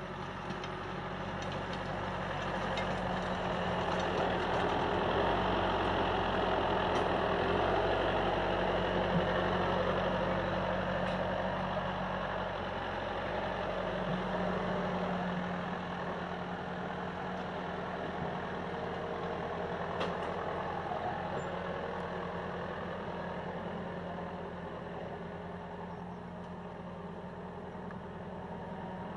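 John Deere 6105R tractor's 4.5-litre four-cylinder diesel running steadily under load as it pulls a seed drill across the field. The sound grows louder as the tractor approaches and passes, then fades as it pulls away.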